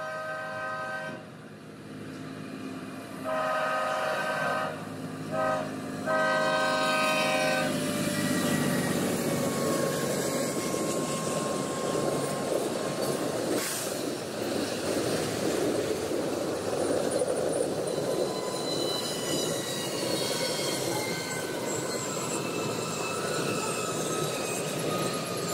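Freight train locomotive's air horn sounding the grade-crossing signal of long, long, short, long as the train approaches. The string of tank cars and hopper cars then rolls past with steady wheel-on-rail noise, and thin wheel squeal comes in during the second half.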